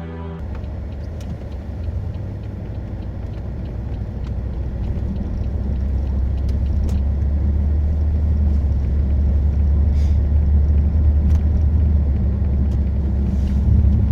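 Car engine and road rumble heard from inside the cabin while driving, growing steadily louder as the car gathers speed, with a few faint ticks.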